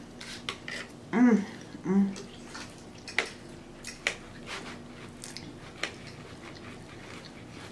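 Knife and fork clicking and scraping on a ceramic plate as a steak is cut, in scattered short strokes. About a second in and again a second later come two short hummed "mm" sounds from the eater, the loudest sounds here.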